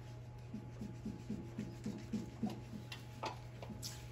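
Quiet room with a steady low hum. A run of soft, quick low knocks, about four a second, lasts a couple of seconds, followed by a few sharp clicks.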